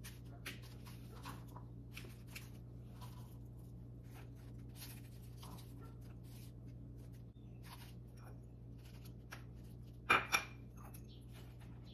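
Soft, irregular taps and scrapes of salad ingredients being cut and handled on a kitchen counter, with a short, louder clatter of two or three hits about ten seconds in.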